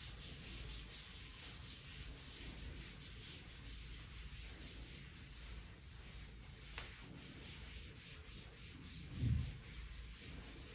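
Cloth duster wiping chalk off a chalkboard: faint, repeated rubbing strokes. There is a sharp click about seven seconds in and a short, soft low thump near the end.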